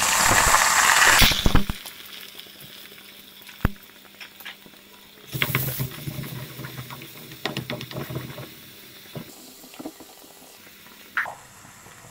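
Chopped shallots and green chilli dropped into hot coconut oil in a clay pot, sizzling loudly for about the first second and a half, then frying more quietly with a second louder burst about five seconds in. Scattered clicks and knocks of a wooden spatula stirring against the clay pot.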